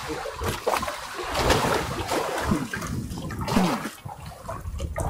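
Sea water splashing and trickling against a small wooden fishing boat, in uneven washes with a few small knocks, over a low rumble.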